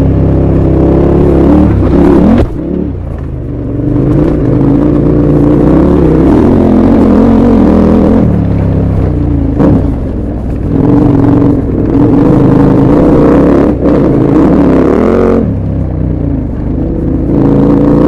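KTM 1190 Adventure R's V-twin engine pulling along a gravel track, heard loud from on the bike. The rider eases off the throttle about two seconds in, again about ten seconds in, and once more near the end, and the revs rise again after each.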